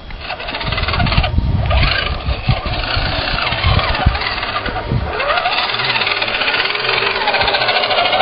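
A radio-controlled scale crawler truck's motor and gears whine, rising and falling in pitch with the throttle over a steady hiss. Several low thumps come in the first half.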